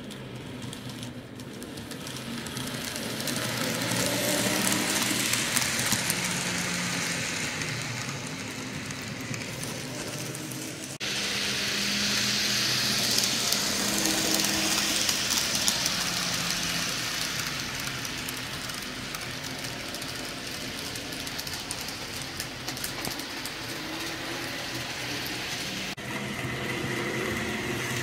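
Model railroad freight train running on layout track: steady running noise from the diesel locomotive and cars. It swells as the train comes close, and changes abruptly about 11 and 26 seconds in.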